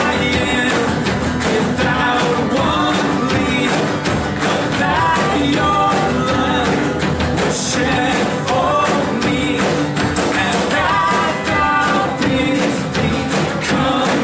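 Church worship band playing a song with lead singers, over a steady drum beat.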